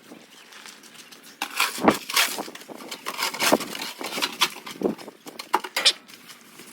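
Irregular crunching and scraping in snow, a run of sharp strokes starting about a second and a half in and lasting about four seconds.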